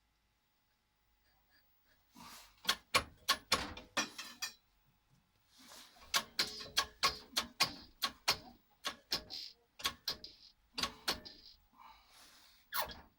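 Hard parts being handled: a run of sharp, irregular clicks, knocks and clatters starting about two seconds in, with a short pause near the middle.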